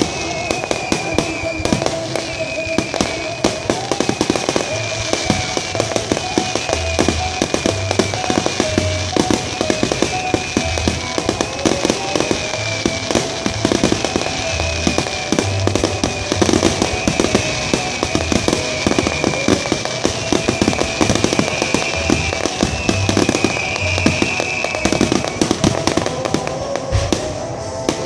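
Fireworks finale barrage: a dense, rapid run of shell bursts and crackling, over music with held tones and a recurring low pulse. Near the end the music stops and the bursts thin out.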